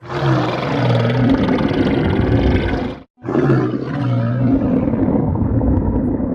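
Stomach growling: two long, loud, rough growls of about three seconds each, with a short dead-silent gap between them where the recording is cut.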